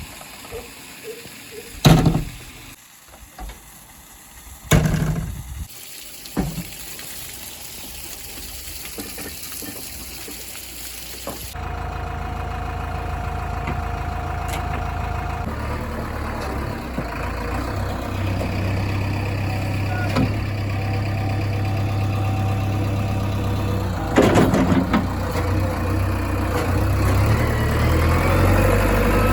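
Diesel engine of a JCB backhoe loader working at a steady speed, with a few sharp metal knocks. The engine sound starts abruptly about a third of the way in and grows slowly louder toward the end.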